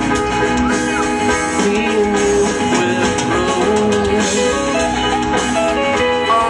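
Live rock band playing guitar and drums in an instrumental stretch, heard from the audience.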